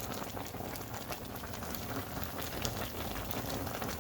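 A large pot of crawfish and seafood boil bubbling, a steady dense patter of small pops.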